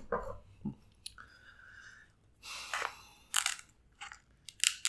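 Close-miked eating sounds: chewing, then a king crab leg's shell crunching as it is cut with kitchen scissors, with sharp cracks about three and a half seconds in and again near the end.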